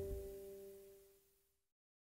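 The last note of a song's guitar ringing out alone and fading away. The single held tone dies out a little past halfway, leaving complete silence.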